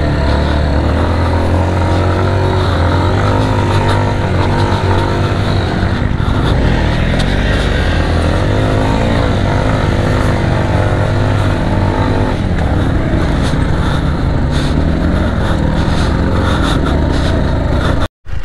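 Big adventure motorcycle engine running under load through deep, soft sand, its revs rising and falling as the throttle is worked. The sound cuts out abruptly for a moment just before the end.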